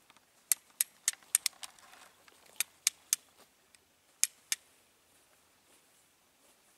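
Flint and steel being struck to throw sparks for lighting a fire: about eleven sharp scraping strikes in quick groups during the first four and a half seconds, then they stop.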